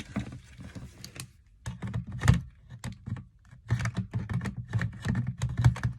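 Irregular run of plastic clicks and knocks as a Makita battery is pushed and worked at the cordless fan's battery slot, which it does not slide home into.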